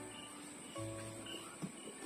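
Background music of slow, long-held notes, with a few short high chirps over it.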